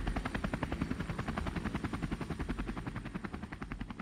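Helicopter rotor beating in a rapid, even rhythm, fading steadily.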